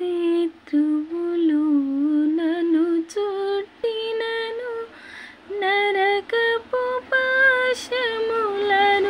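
A woman singing unaccompanied: a melody of held notes with vibrato, sung in short phrases with brief breaks between them.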